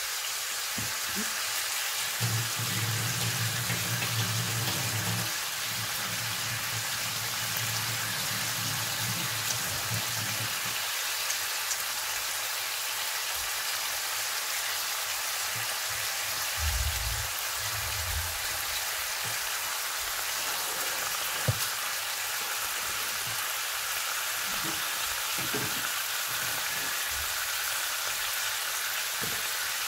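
Bacon frying in an open pan: a steady sizzling hiss with occasional small pops of grease. A low hum runs through the first third, and a dull knock comes a little past halfway.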